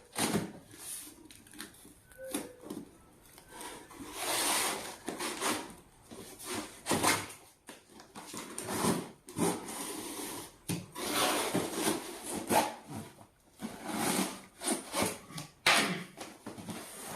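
A cardboard package sealed with paper tape being opened by hand: scraping, rubbing and rustling in irregular bursts with short pauses.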